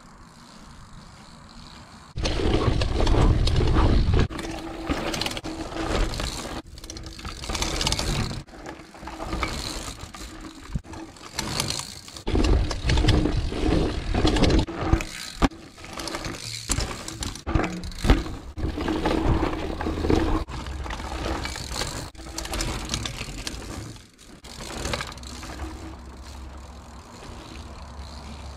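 A mountain bike ridden over dirt pump-track rollers, heard from a camera on the rider: rushing wind noise on the microphone, tyres on dirt, and the rattle and clicking of the bike and its drivetrain. It is faint for the first two seconds, then loud, broken into short passages by abrupt cuts.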